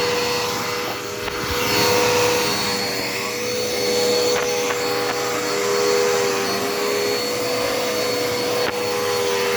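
Dirt Devil Endura Reach vacuum cleaner running, a steady motor whine over airflow noise, with a brief dip in pitch and level about a second in.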